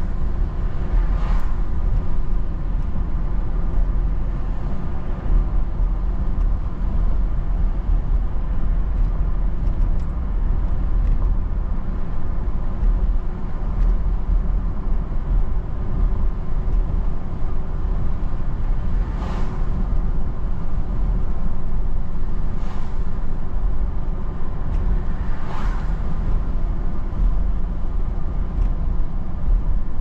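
Steady road and engine rumble heard from inside a moving car on a wet road, with tyre hiss. A few brief swishes stand out, about a second in and several times in the second half.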